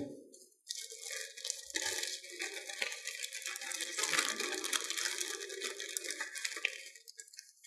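Rustling of packaging as a parts kit is rummaged through by hand, a steady run of small crackles that stops near the end.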